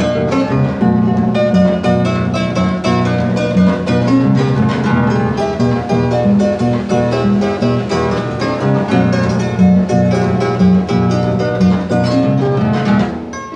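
A newly built Paraguayan harp played by hand to test its resonance: a continuous flow of plucked notes, with bass strings ringing under the melody. There is a short dip in loudness just before the end.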